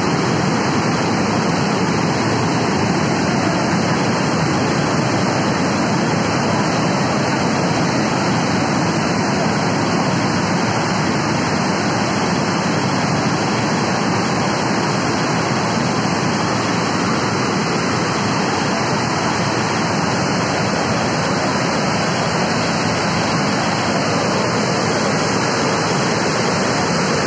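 The Yamuna River in flood after heavy rain: a loud, steady rush of fast floodwater pouring through a rocky gorge.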